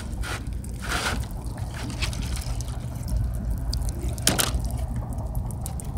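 Water trickling and dripping from bullet-holed plastic water jugs onto a wet board, over a steady low rumble, with a few short crackles near the start and about four seconds in.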